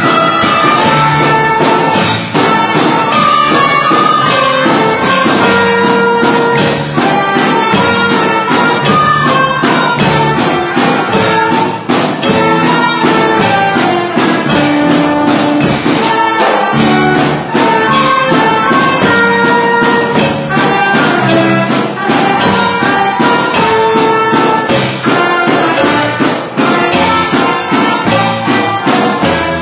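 A student band playing a regional son: a row of soprano recorders carrying the melody together over keyboard and a steady drum and percussion beat.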